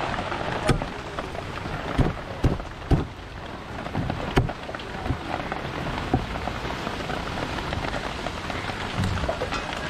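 A large knife chopping through a skipjack tuna onto a wooden chopping block: about five sharp chops in the first half, over a steady hiss of rain.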